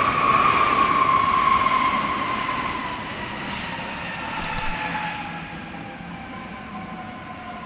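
Boeing 777 freighter's GE90 turbofans at taxi power: a high jet whine over a low rumble that slowly falls in pitch and fades as the aircraft moves away.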